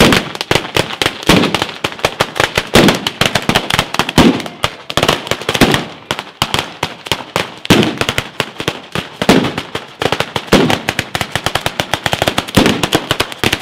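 Batteria alla bolognese: strings of firecrackers hung along a rope going off in a dense, continuous crackle, with heavier bangs about every second and a half.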